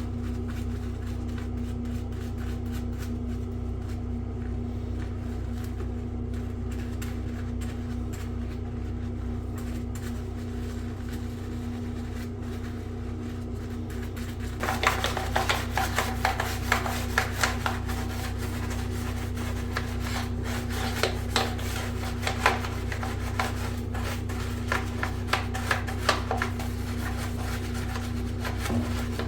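Rubbing and scraping of hard bidet parts being scrubbed and handled, with many small clicks and knocks, starting about halfway through. A steady low hum runs underneath.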